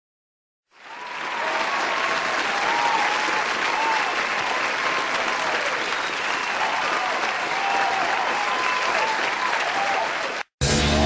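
Crowd applauding and cheering, fading in about a second in and cutting off suddenly near the end as music begins.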